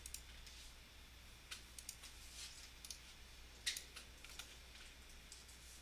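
Faint, scattered computer mouse clicks over quiet room tone, made while picking menu items in a design program; the loudest click comes a little under four seconds in.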